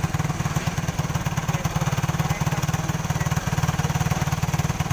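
Yamaha 450R ATV's single-cylinder four-stroke engine idling steadily with an even, fast pulse, running again after its dirt-clogged carburetor was cleaned.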